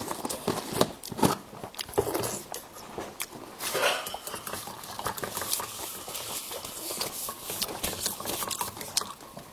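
Close-up eating sounds: chewing and biting, with utensils clicking against a dish in many short, irregular clicks.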